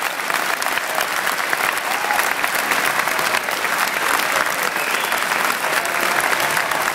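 A large audience applauding a snooker player's walk-on: dense, steady clapping from many hands.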